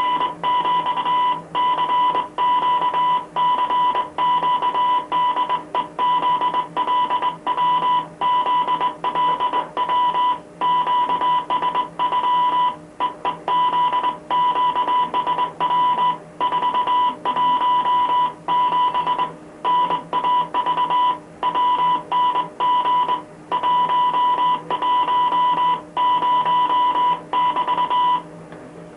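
Morse code from coast station Wellington Radio ZLW, heard through a radio receiver as a single steady high tone keyed on and off over hiss. The keying stops shortly before the end.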